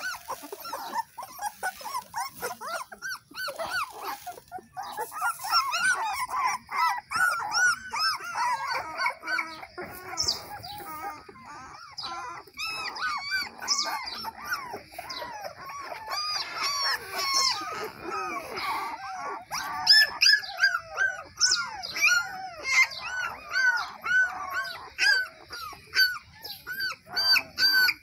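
A litter of young German Shepherd puppies whimpering and crying, many short high-pitched rising-and-falling whines overlapping without a break, louder in the last third.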